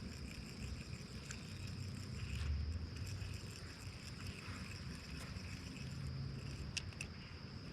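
Insects droning steadily in a high, even buzz over a low rumble, with a few faint clicks near the end.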